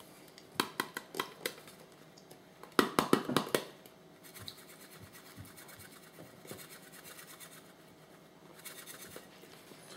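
Metal spoon scraping and tapping against a glass bowl as sliced raw chicken is stirred with seasoning. There are a few sharp clicks early, a louder run of quick taps about three seconds in, then softer scraping.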